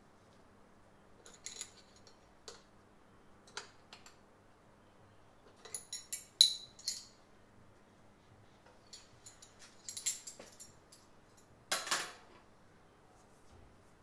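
Scattered metallic clicks and clinks of hand tools and small metal fittings being handled, loudest in a quick cluster about halfway through and again near the end.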